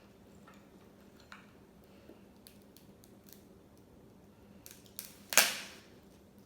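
Crab leg shell being cracked: a few faint clicks, then one loud, sharp crack about five and a half seconds in.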